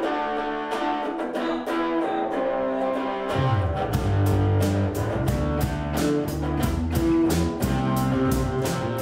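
A small rock band playing: electric guitar chords over drums keeping a steady beat, with low bass notes joining in about three seconds in.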